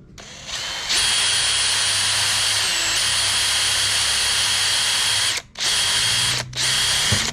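Power drill boring a bolt hole through the hardened repair patch on a car bumper, bringing the material out in shavings. One steady run of about four seconds, then two short bursts near the end.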